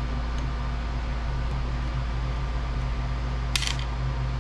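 Steady hum of a Creality Ender 3 Max 3D printer's cooling fans running while its hot end is heated, with a short click about three and a half seconds in.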